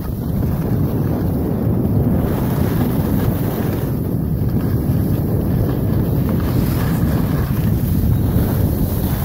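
Wind buffeting a phone's microphone as the person filming skis downhill: a steady low rumbling noise.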